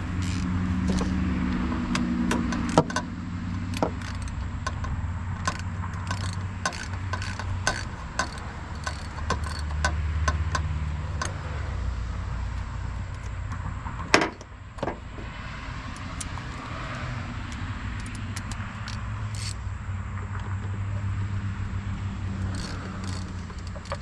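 Metal hand tools clinking and clicking as a 10 mm socket is worked on the car battery's terminal nuts to take off the cables, with one sharper knock about halfway through. A low steady hum runs underneath.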